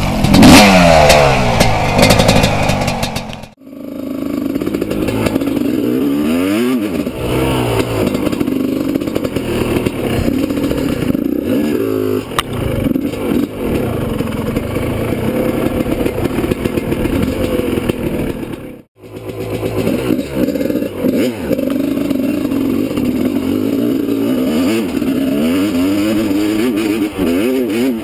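1994 Suzuki RM250 two-stroke dirt bike with an FMF Fatty expansion pipe, revving up and down repeatedly as it is ridden. The sound breaks off sharply twice, about three and a half and nineteen seconds in.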